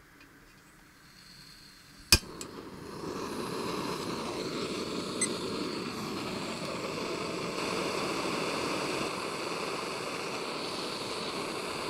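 Gas canister backpacking stove being lit: a faint hiss of gas as the valve opens, a sharp click about two seconds in as it lights, then the burner running with a steady rushing hiss at a set flame under a pot of water.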